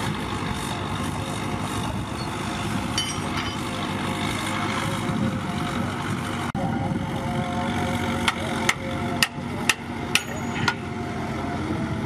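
Heavy diesel engines of dump trucks and a bulldozer running steadily. Later on, six sharp knocks come about two a second.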